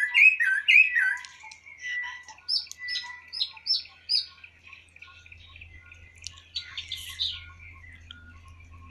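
Wild birds singing: a loud repeated phrase of slurred whistled notes for the first second or so, then several quicker series of higher chirps from more than one bird, growing quieter after about five seconds.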